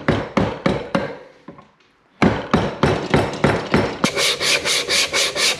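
Wooden mallet striking a chisel that cuts into a hard-wood bowl blank: a run of sharp knocks about four a second, a pause of about a second, then another run. Near the end the strokes turn hissier.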